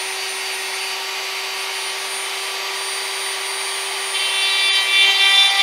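Handheld rotary tool running at a steady high whine. About four seconds in, the bit starts cutting into the laminated wood rifle stock, adding a louder grinding rasp as it grooves the action inletting to take bedding epoxy.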